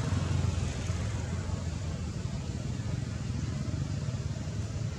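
Steady low rumble of vehicle traffic with an even hiss over it.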